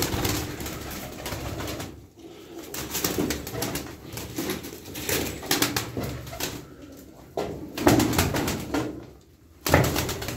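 A loft full of Turkish play pigeons (oyun kuşu) cooing, with short flurries of wing flapping as birds flutter up and land.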